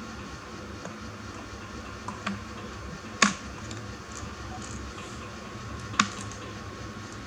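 A few sharp clicks over a steady low hum, the loudest about three seconds in and another about six seconds in.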